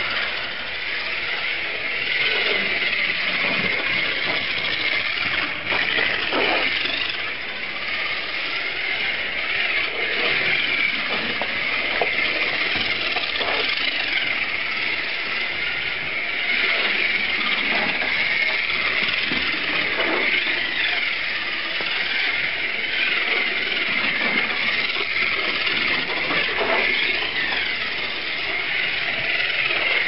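Slot cars running on a plastic slot car track: a steady high whine and buzz from their small electric motors, with the pitch rising and falling now and then.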